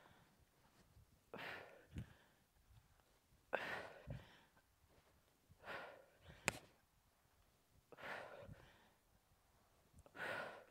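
A woman's hard, forceful breaths out, one with each rep of kettlebell thrusters, five times about two seconds apart. Faint low thumps and one sharp click come between the breaths.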